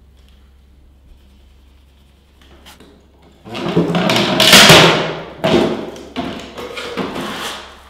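Lever-action laminate cutter shearing through a click-laminate panel: a loud noisy crunch of about a second and a half starting some three and a half seconds in, followed by a few shorter knocks from the cutter and panel.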